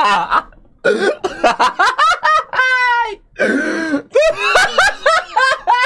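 A man laughing hard, with quick breathy laughs broken by a long high-pitched squealing wheeze that falls in pitch about two and a half seconds in, and cough-like hacking.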